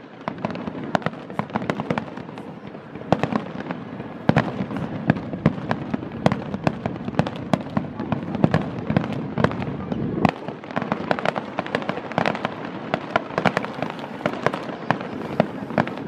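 Aerial firework shells bursting in a dense finale barrage: many sharp bangs a second, overlapping over a continuous rumble, with a brief lull about ten seconds in.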